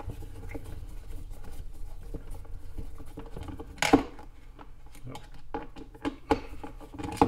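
Security Torx screwdriver turning screws out of a coffee machine's plastic base: light scraping and ticking as the driver turns, with a few sharper clicks as the tip seats in a screw head, the loudest about four seconds in.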